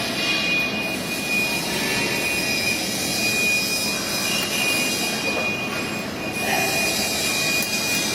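Argon (TIG) welding running steadily: a continuous hiss with a thin, steady high-pitched whine through it.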